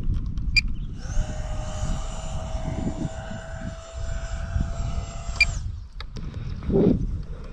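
Electric ducted fan of an Arrows L-39 radio-controlled model jet whining in flight: a steady high whine that starts about a second in, rising briefly as it comes on, and stops abruptly about four and a half seconds later. Gusty wind rumbles on the microphone throughout.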